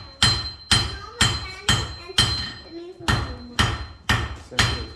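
Blacksmith's hammer striking iron on an anvil in a steady rhythm, about two blows a second, each with a short metallic ring: forging a nail from a bar of iron.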